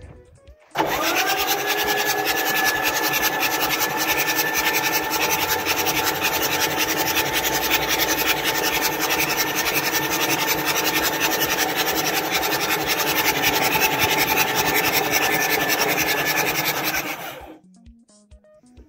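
Starter motor cranking a Nissan TD42 straight-six diesel for about sixteen seconds without it firing, a steady rasping whine that starts and stops abruptly. The start attempt fails because the battery is very low.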